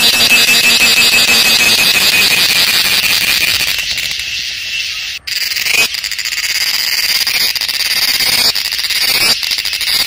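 Cicadas singing: a loud, steady, high-pitched buzzing drone that cuts out for an instant about five seconds in and comes back slightly higher.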